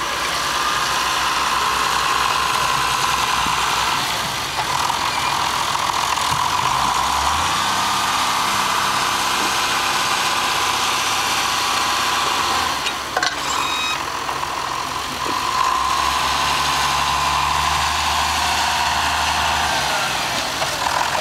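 Diesel engine of a John Deere tractor running under load as it drives over a silage pit to compact the grass, with a steady high whine over it. The engine note shifts up and down a few times as the tractor climbs and comes back down the heap, and there is a brief knock about halfway through.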